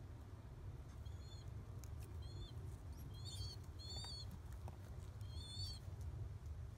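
Newly hatched pigeon squab peeping: a series of short, high, squeaky cheeps, roughly one a second, over a steady low background rumble.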